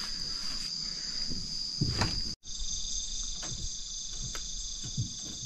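Night insect chorus of steady, high-pitched trilling. It cuts out for an instant about two and a half seconds in and comes back a little lower in pitch. A few faint knocks sound over it.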